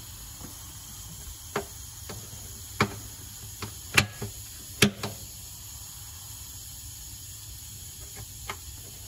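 Scattered sharp knocks and clicks, about a dozen, the loudest about four and five seconds in, over a steady low hum.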